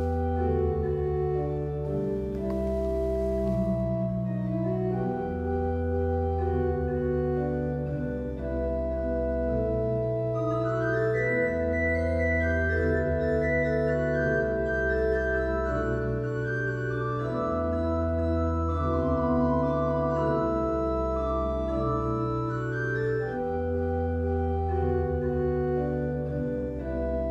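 Church organ playing a slow interlude of sustained chords over a stepping bass line, with higher voices joining about ten seconds in.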